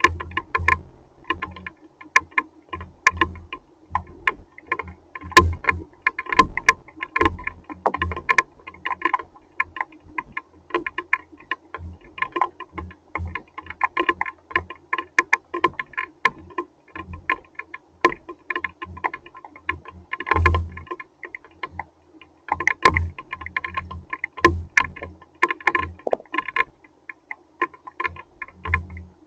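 Hailstones striking a hard surface: dense, irregular sharp clicks and taps, several a second, that go on without a break.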